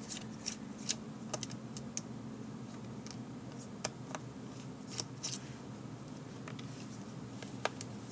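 Faint, irregular small clicks and ticks of a T5 Torx precision screwdriver working the tiny screws in a GPS unit's plastic back case, over a low steady hum.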